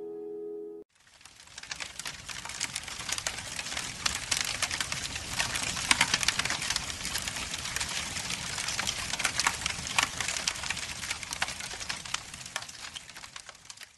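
Crackling fire sound effect: a dense crackle with sharp pops, starting about a second in as piano music cuts off, and fading toward the end.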